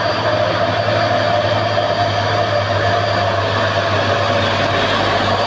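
Heavy diesel truck engines running steadily as a tanker truck and a dump truck approach, a constant low drone.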